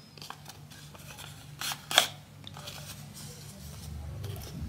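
Folded paper of an origami duck rustling and crinkling as fingers bend and shape it, with two sharper crackles close together about two seconds in.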